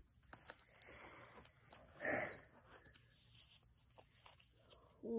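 Faint handling sounds of trading cards: soft clicks and rustles, with one short breathy rush about two seconds in.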